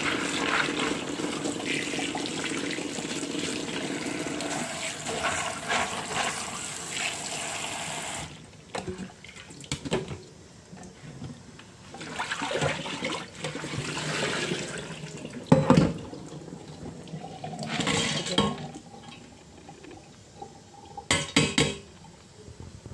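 Kitchen tap running over dried Chinese herbs being washed, shut off suddenly about eight seconds in. Scattered splashing and a few sharp knocks follow as the wet ingredients are handled.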